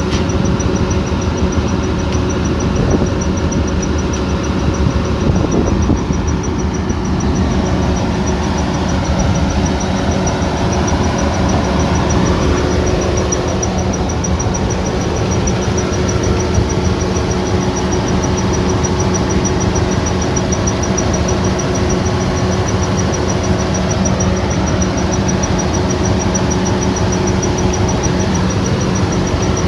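Kubota combine harvester's diesel engine running steadily at a constant pitch, with a thin high-pitched tone held steadily above it.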